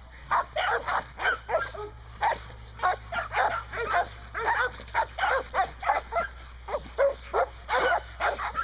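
A dog's short, high yips and whines, repeating about two to three times a second with a bending pitch.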